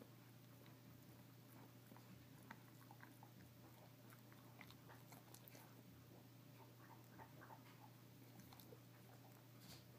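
Old English bulldog gnawing on a Busy Bone chew treat: faint, irregular clicks and crunches of teeth on the treat.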